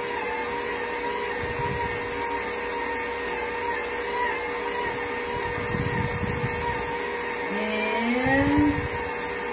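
KitchenAid bowl-lift stand mixer running steadily with a constant motor whine as it mixes pasta dough, under an uneven lower rumble that swells and fades. Near the end a short rising tone is the loudest sound.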